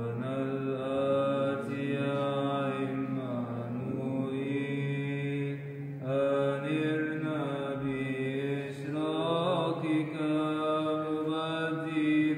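Byzantine Orthodox chant: a melismatic vocal line weaving slowly up and down over a steady, held low drone, the ison.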